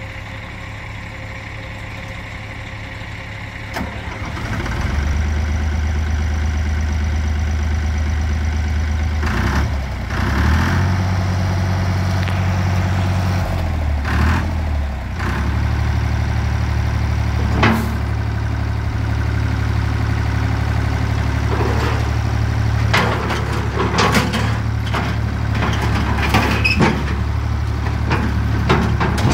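Universal 453 DT loader tractor's diesel engine running steadily. It picks up speed about four seconds in and shifts pitch a couple of times midway. Several sharp knocks or clanks sound in the second half.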